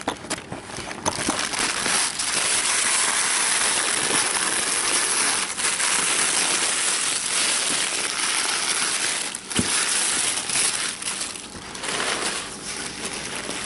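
Tissue paper crinkling and rustling as a gift package is unwrapped by hand, a steady papery noise broken by a few brief pauses and a sharp click.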